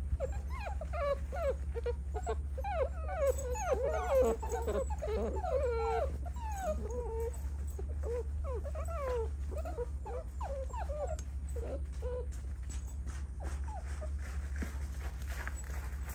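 Several American bully puppies whining and yipping, a quick overlapping run of short rising and falling whines that thins out midway and stops about three-quarters of the way through. A steady low hum runs underneath.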